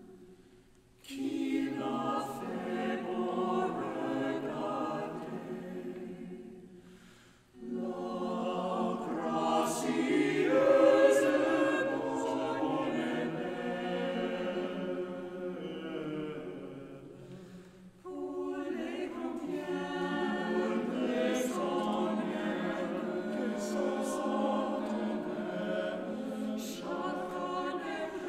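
Mixed-voice choir singing a cappella, men's and women's voices together, in three phrases with short breaks between them, about a second in, about seven seconds in and about eighteen seconds in.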